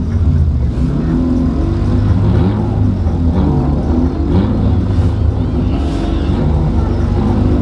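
Car cabin noise while driving: a steady low engine and road rumble, with the engine note wavering in pitch.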